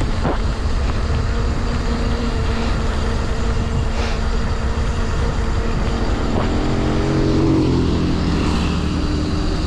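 Steady wind and rain noise on the microphone of a camera mounted on a moving bicycle. About seven to eight seconds in, the engine of an oncoming motor vehicle rises and falls in pitch as it passes.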